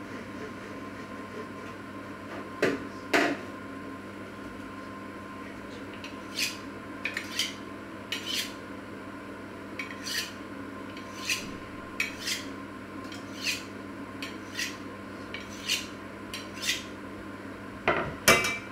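A kitchen knife being honed on a sharpening steel: about fifteen short, sharp metallic scraping strokes, roughly one a second. Two louder knocks come a few seconds in and a loud clatter near the end.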